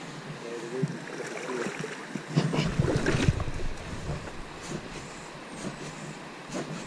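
River water running fast over stones and lapping at the rocks, with wind buffeting the microphone, strongest from about two and a half to three and a half seconds in.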